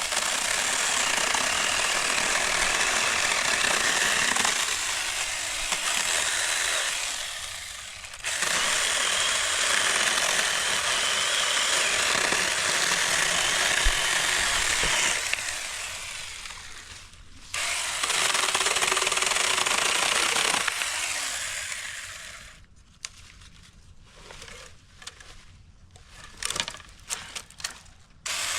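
Saker 20-volt cordless electric mini chainsaw cutting through dry, dead branch wood in three long runs, the noise easing off between them. Near the end come a few seconds of quieter, scattered clicks and knocks.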